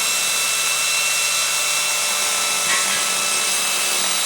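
Angle grinder running steadily with a high whine, its blade cutting into a ceramic tile.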